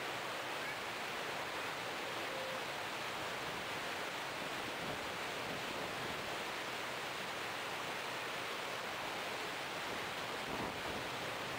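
Steady rush of water and wind heard from aboard a moving boat, an even hiss without any distinct engine tone.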